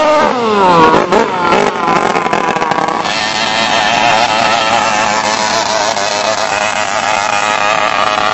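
Longtail racing boat engine at high revs: the pitch drops steeply as it passes, then climbs again about a second in and holds high and wavering as it runs flat out.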